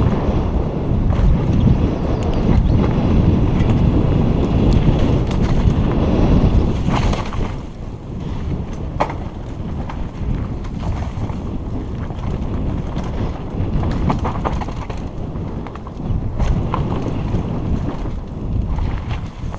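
Wind rushing over a helmet-mounted camera's microphone as a Kona Operator downhill mountain bike rolls fast down a dirt forest trail, mixed with tyre noise and rattling from the bike. The rush is loudest for the first seven seconds or so, then drops a little, with scattered clicks and knocks from the bike over the rough ground.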